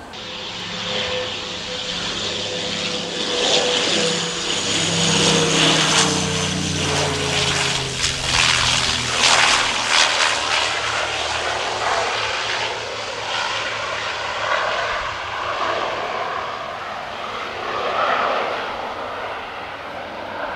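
Embraer EMB-120 Brasilia twin-turboprop airliner landing, its propellers and engines growing louder as it passes on short final. A whine falls in pitch as it goes by. The sound then carries on more softly as the aircraft rolls out on the runway.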